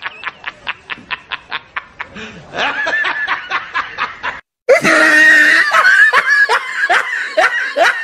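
Rapid, evenly pulsed laughter for about two seconds, then more laughing voices. About halfway through the sound cuts out for a moment and comes back louder, with a steady tone held for about a second under continued laughter.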